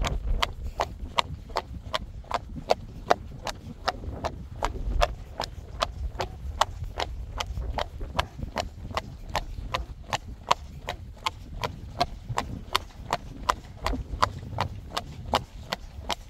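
Friesian horse's hooves clip-clopping on a paved path under a rider, in a steady rhythm of about four sharp hoof clicks a second.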